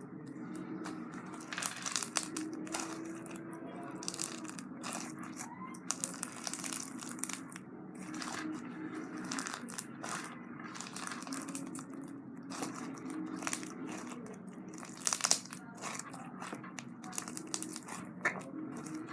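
Red floam slime squeezed and smushed by hand, its foam beads crunching with irregular crackles and pops, a louder burst of crunching about fifteen seconds in.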